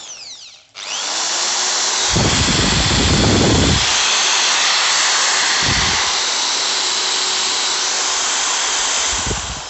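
Black+Decker TB555 550 W hammer drill running free at high speed, set to hammer mode. A short run spins down in the first second, then the drill starts again and runs steadily at a high whine for about nine seconds, with heavy low rattling from about 2 to 4 s in and brief bursts of it near 6 s and just before the end.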